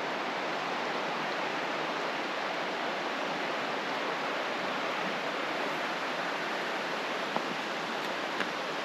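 River water flowing, a steady even rush.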